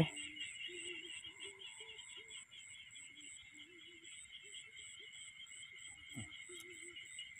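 Faint night chorus of insects and frogs: a steady, pulsing high trill from insects under short frog calls repeated every half second or so. A soft thump about six seconds in.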